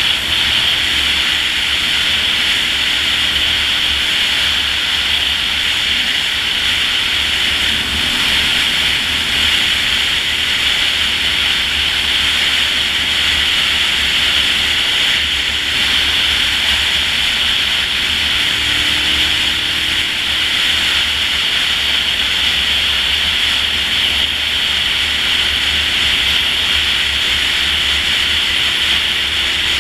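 Steady rush of wind on the microphone of a camera on a Honda VTR1000 motorcycle riding at road speed, with the bike's V-twin engine droning faintly underneath.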